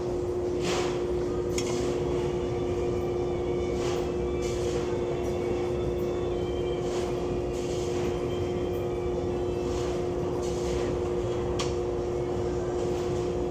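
Knife-sharpening belt grinder running with a steady hum, with short hissing strokes every second or two as a nakiri blade is touched to the belt to refine its edge.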